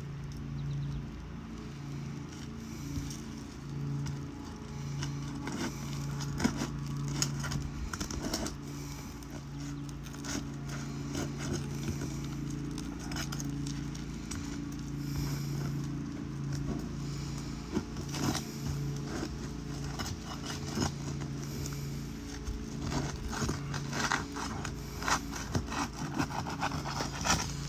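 Scattered scraping and crackling clicks of hand tools working under asphalt roof shingles to break their adhesive seal, growing busier near the end. Under them runs a steady, low, pulsing machine hum.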